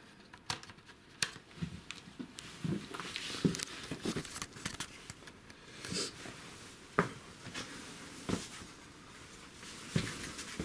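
Irregular footsteps and scuffs on the rocky floor of a narrow cave passage, with clothing and gear rustling between the steps.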